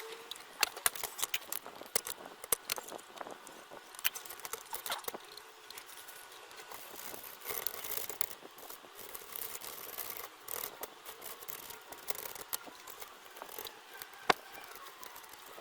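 Irregular clicks, taps and light scrapes of small tools and parts being handled on a workbench, with one sharper click near the end.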